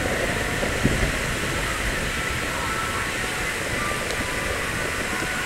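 Steady outdoor hubbub of a watching crowd, with one faint distant firework thud about a second in.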